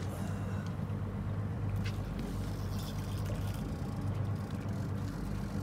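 Boat's outboard motor idling, a steady low hum, with a few faint clicks over it.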